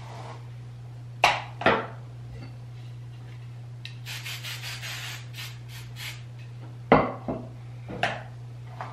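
Aerosol can of hair holding spray hissing: one longer spray about four seconds in, then a few short puffs. Several sharp clacks before and after.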